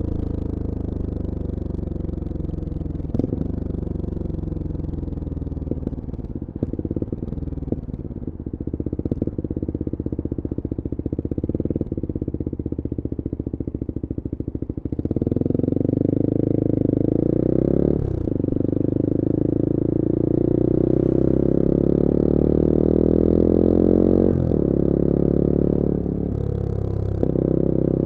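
Engine and exhaust of a 2021 Bullit Hero 250 motorcycle, its CF Moto 250cc four-stroke engine, heard while riding. For the first half it runs at low, uneven revs; then it gets louder and accelerates, the pitch climbing, dropping at a gear change, and climbing again to a second change.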